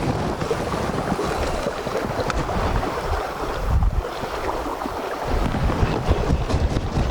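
Wind buffeting the microphone over the rush of sea surf, with uneven low gusts.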